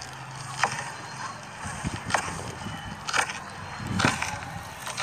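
Weeds and leafy greens being chopped with a knife, four sharp chops roughly a second apart.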